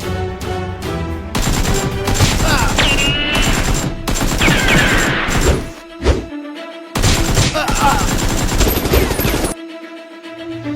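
Two long bursts of rapid gunfire over background music, the first starting about a second and a half in and the second about seven seconds in.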